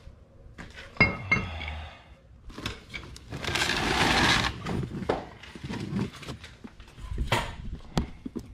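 Steel brake caliper bracket and pads being handled and set down on a concrete garage floor, with metal clinks and knocks: a sharp clank about a second in, a longer scrape around the middle and another clank near the end.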